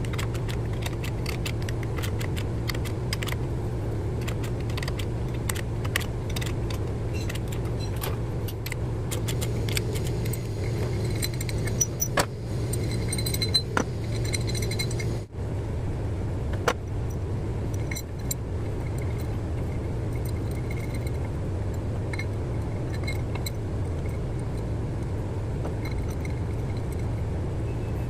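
Socket wrench ratcheting on a bolt in a round steel plate on a Cat 3406 engine's front gear housing, a quick run of sharp clicks through the first ten seconds. Then a few metal knocks and light ringing clinks as the plate is handled, over a steady low hum.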